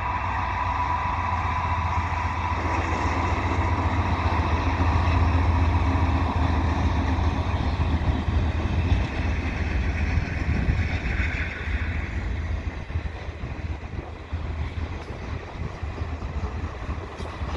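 Diesel-electric freight locomotives, a GE C44-9W and an EMD GP38-2, running past with a deep steady engine drone that is loudest about five or six seconds in and then eases as the train goes by.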